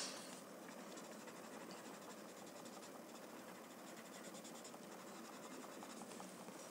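Faint rubbing and scratching of a graphite pencil and paper blending stump shading on a paper card, with a brief brushing swish right at the start.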